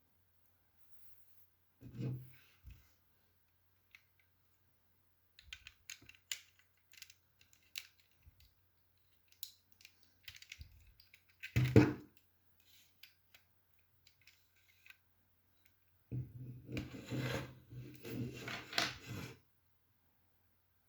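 Plastic Lego bricks being handled and pressed together: scattered small clicks, a sharp knock about twelve seconds in, and a few seconds of rattling near the end.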